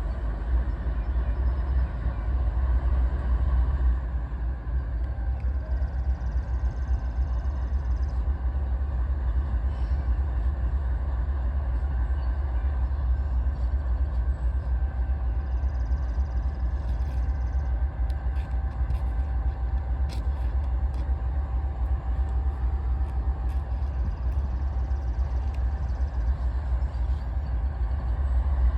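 Steady low rumble of a moving train heard while riding along with it, with no horn sounding. A faint steady tone comes in about halfway through, and scattered faint clicks are heard in the second half.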